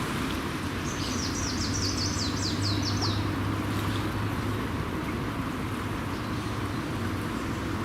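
A songbird sings one short trill of quick, repeated falling notes, lasting about two seconds, over a steady rushing noise with a low hum.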